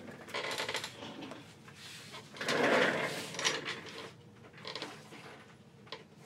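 Drawers being pulled open, rummaged through and pushed shut, a series of irregular slides and clatters, loudest about two and a half seconds in.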